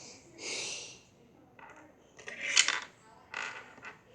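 Plastic Play-Doh tools scraping and clattering against a slate board in several short bursts, the loudest about two and a half seconds in.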